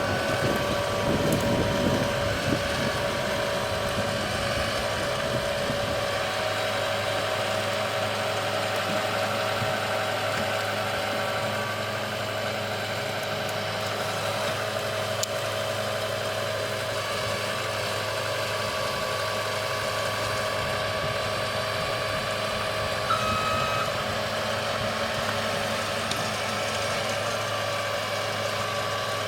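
Moritz fr 75 forestry carrier's engine running steadily at a constant speed, with a little more roughness in the first couple of seconds.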